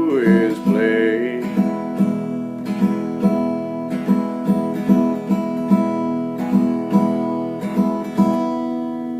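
Acoustic guitar strummed in a steady rhythm, with a held sung note fading in the first second; the song's final chords end abruptly near the end.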